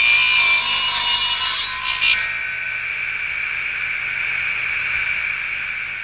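Intro of a heavy-metal song: a sudden crash of harsh, hissy noise, then a single high-pitched electric guitar feedback tone that holds and slowly fades. The crash thins out about two seconds in.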